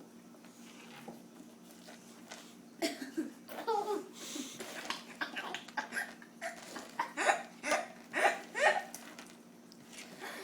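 A toddler giggling and squealing in a run of short bursts, starting about three seconds in and dying away near the end.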